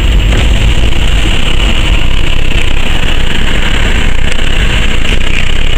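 Steady, loud rumble of a car being driven, road and engine noise heard from inside the cabin.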